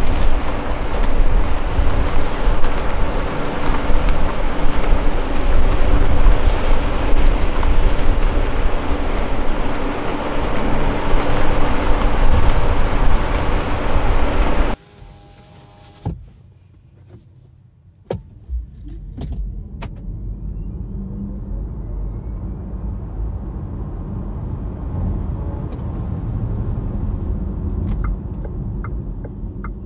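A loud steady rushing noise that cuts off suddenly about halfway. After a few clicks, the Cupra Born's rear-mounted 150 kW electric motor accelerates hard: a faint whine rising in pitch over several seconds over low road and tyre rumble.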